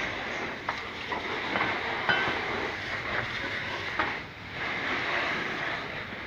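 Hose-end foam gun on a garden hose spraying soapy water onto a car's body and wheel: a steady hiss of spray with a few sharp knocks. The spray drops away briefly just after four seconds, then comes back.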